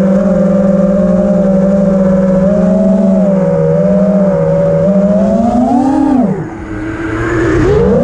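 FPV quadcopter's brushless motors and propellers whining at a steady pitch, heard from a camera on the quad. About six seconds in the pitch rises, then drops sharply as the throttle comes off, and it climbs again near the end as power is added.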